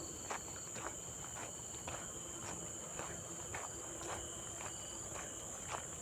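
Steady, high-pitched insect drone with footsteps on a trail path, about two steps a second.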